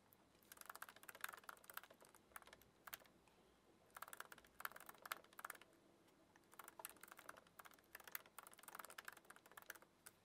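Typing on a computer keyboard: quick runs of light key clicks, about five bursts of a second or so each, with short pauses between them.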